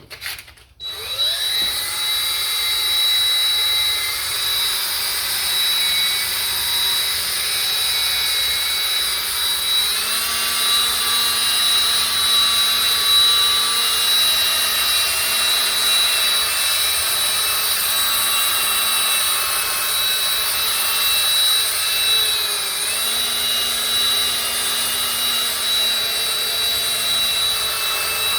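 Small handheld rotary power tool spinning up about a second in, then running steadily as it buffs and polishes a touched-up paint repair on a guitar finish. Its pitch steps up once and dips briefly later on.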